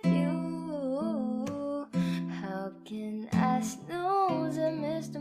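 Background music: a song with a singing voice over plucked acoustic guitar.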